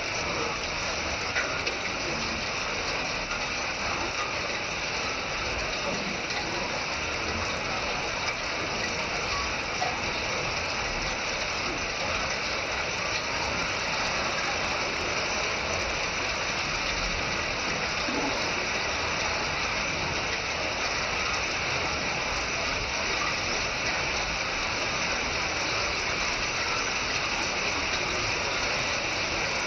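Hail falling hard: a dense, steady clatter of countless small hailstones striking hard surfaces.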